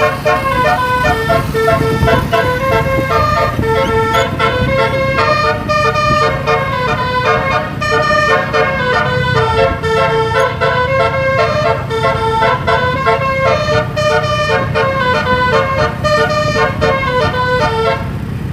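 Bus telolet horn, a multi-tone air horn, playing a fast repeating melody of changing notes, with the bus's engine running underneath. The horn stops shortly before the end.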